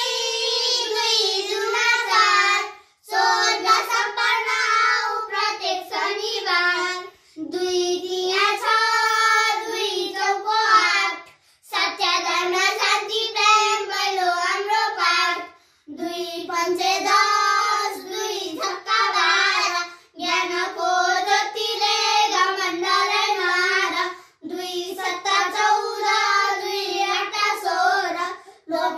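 Children singing a song without instrumental accompaniment, in phrases of about four seconds with short breaks for breath between them.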